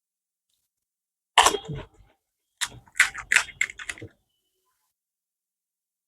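Crisp fuchka (pani puri) shells being bitten and chewed, crunching: one burst about one and a half seconds in, then a quick run of several crunches from about two and a half to four seconds.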